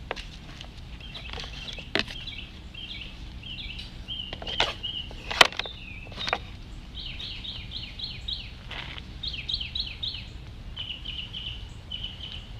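Small bird chirping in quick repeated runs of short notes, with a few sharp knocks or clicks in the first half, the loudest about five seconds in.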